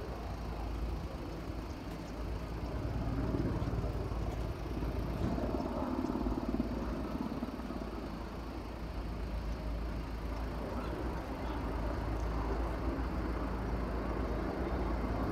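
Steady low rumble of a vehicle engine, with an even hiss above it.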